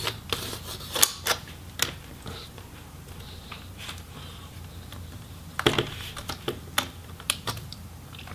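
Plastic pry tool clicking against the MSI GL62M laptop's plastic hinge cover as its little retainer clips are worked loose, in irregular sharp clicks. The clicks come in a quick cluster about five and a half seconds in.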